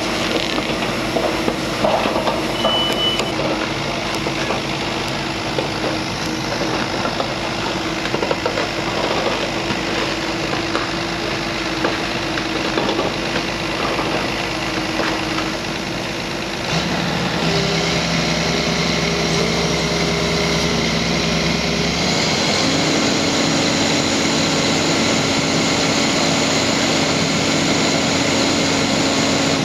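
Diesel engine of a heavy crawler earth-drill rig running, with clanks and rattles of the machine. A short high beep sounds about two and a half seconds in; about seventeen seconds in the engine note turns steadier and louder, and it steps up to a higher, steady pitch around twenty-two seconds in as the throttle comes up.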